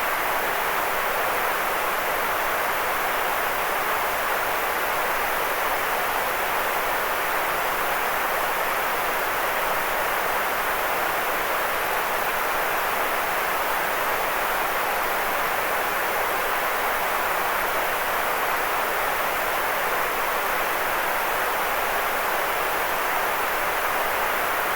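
Steady white noise for sleep, an unbroken, even hiss that never changes, with most of its weight in the middle of the range and little bass.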